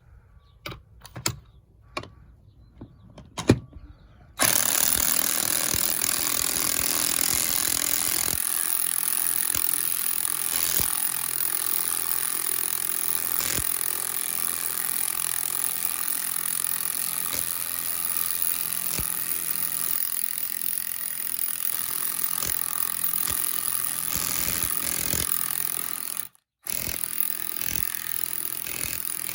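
Cordless 1/2-inch impact wrench hammering a lag bolt into wood, after a few sharp clicks of handling. The impact noise starts about four seconds in and runs on steadily, with a brief break near the end.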